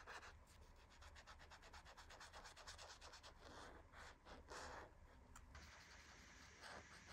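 Faint rubbing and scratching of a brush-tip acrylic paint marker dabbed and drawn across textured paper, in many short strokes as colour swatches are filled in.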